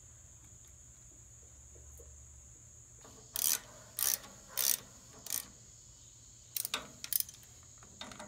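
Socket ratchet wrench clicking in short strokes as it tightens the ignition coil's bracket bolts. After a quiet start come four strokes a little over half a second apart, a pause, then a quicker run of strokes near the end.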